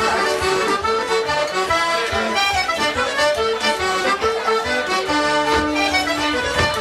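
Accordion playing a traditional Irish tune, with many quick notes over a steady low beat.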